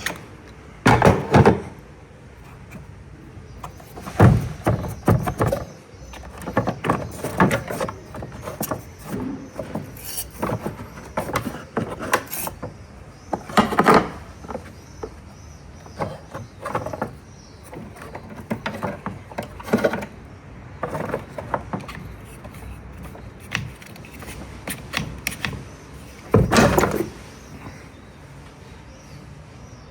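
Irregular metallic clicks, clanks and knocks of hand work on a car battery and its fittings, with a few louder thumps about a second in, about four seconds in, near the middle and near the end.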